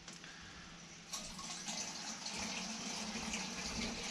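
Deionised water poured from a plastic measuring jug into a plastic container of petrol: a steady splashing pour that begins about a second in.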